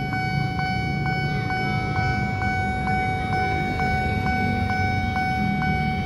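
Railway level-crossing warning alarm sounding steadily, a fixed electronic tone pulsing about twice a second, over the low rumble of motorcycles and cars at the crossing.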